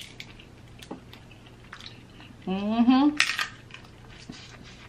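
Faint clicks and crackles of crab meat being picked from the shell by hand. About two and a half seconds in comes one short hummed vocal sound from the eater, rising in pitch and ending in a brief hiss.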